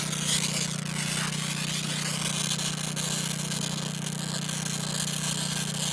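Multiplaz steam-plasma torch running with a steady hiss over a constant low hum.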